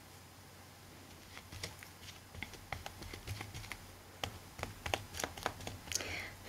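Glue brush dabbing and scraping white glue over fabric on a chipboard journal cover: a run of small, irregular taps and scratches that starts about a second in and grows busier.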